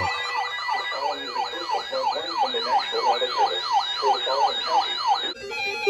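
Electronic siren-style alarm in a fast yelp: a falling sweep repeating about three times a second, over steady low tones, cutting off near the end.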